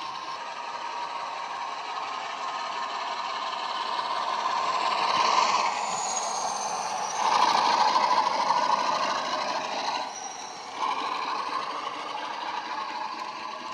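ESU hifi DCC sound decoder in a model Class 47 diesel locomotive playing the engine running under power through the model's speaker. It grows louder as the locomotive passes close by around the middle, with a thin high whine falling briefly in pitch about six seconds in.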